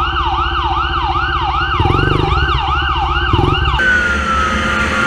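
Emergency siren in a fast yelp, each sweep rising and then dropping sharply, about two and a half sweeps a second. It cuts off suddenly a little under four seconds in, leaving wind rush with a thin whine that slowly falls in pitch.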